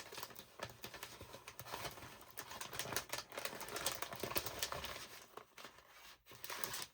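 Old paper rustling and crinkling as a stack of papers is sorted through by hand, with many small quick ticks and taps.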